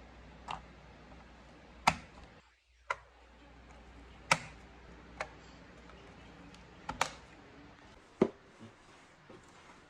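Sharp clicks and knocks of hard computer parts being handled and fitted, about eight at irregular intervals, over a faint low hum.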